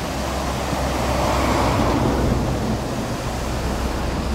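Steady rushing of a fast, muddy mountain river running over a stony bed.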